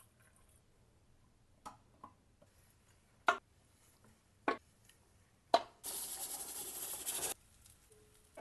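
Five sharp clinks and knocks from handling glass canning jars, then a steady hiss lasting about a second and a half that cuts off suddenly: steam venting from a stovetop pressure canner.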